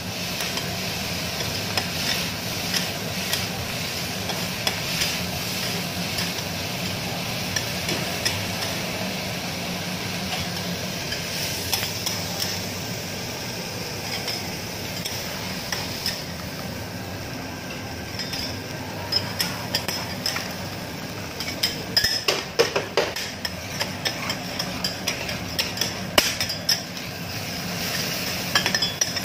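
Food frying on a steel teppanyaki griddle: a steady sizzle under the scraping and clattering of two metal spatulas on the hot plate. In the last third the spatulas strike the griddle in quick, sharp, irregular taps as meat is chopped and turned.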